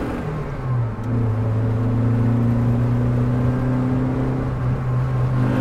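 Honda Element's 2.4-litre four-cylinder engine pulling the car along, heard from inside the cabin, with a new 1320 Performance rear engine mount fitted. The engine note drops a little about a second in, then holds a steady drone.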